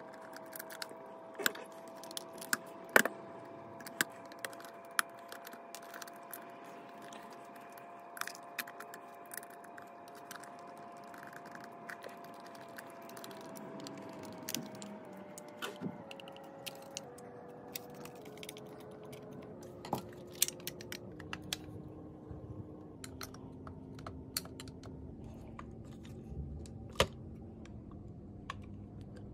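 Screwdriver and small screws clicking and ticking against an Autolite 2100 carburetor's aluminium body as the screws in its top are driven in: irregular light taps, a few sharper.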